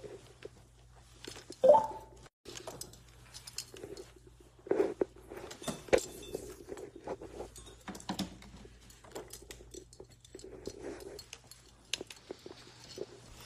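Handling noise from a phone microphone as the phone is moved about: faint rustles, scrapes and scattered small taps and clicks over a steady low hum.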